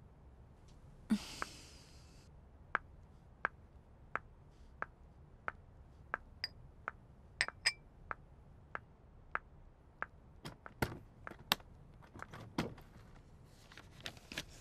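Footsteps of heeled sandals clicking on a hard tiled floor at a slow walking pace, about one step every 0.7 s, after a brief scrape about a second in. A few louder, uneven knocks follow near the end.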